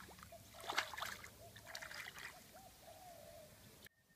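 Creek water splashing and trickling as a caught bass is let go by hand at the water's edge, in two short bursts of splashing, about one and two seconds in. The sound cuts off abruptly near the end.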